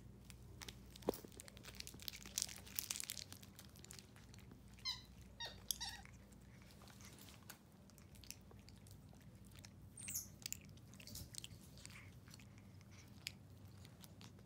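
White-faced capuchin monkey biting and chewing a hard-candy lollipop: faint, scattered crunches and clicks. A few short high squeaks come about five seconds in, with another near ten seconds.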